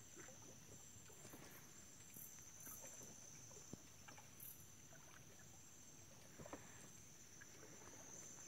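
Faint, steady high-pitched chirring of insects, with scattered soft clicks and small water sounds around a small boat.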